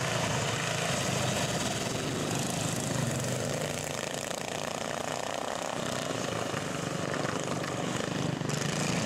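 Small engines of racing garden tractors running steadily as they circle a dirt track.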